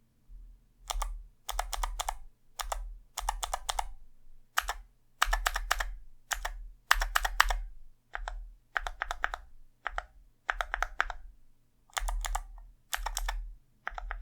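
Mechanical keyboard with clicky Kailh Box Jade switches being typed on, in short runs of sharp, loud clicks separated by brief pauses.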